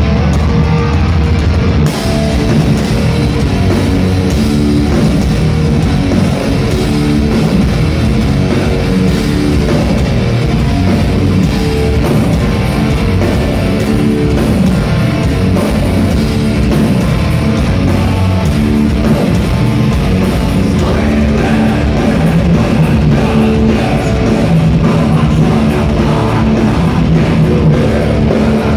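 A heavy metal band playing live: distorted electric guitars, bass guitar and a drum kit, loud and unbroken.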